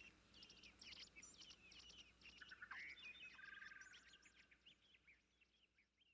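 Faint songbird calls: a busy run of quick high chirps and short trills, dying away near the end.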